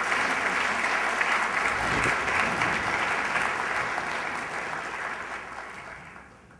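Audience applauding, fading away over the last two seconds or so.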